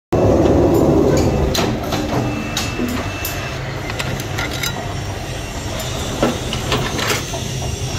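Metalworking workshop machinery running with a steady low rumble, overlaid by irregular metallic clanks and knocks. The rumble is loudest in the first second or so.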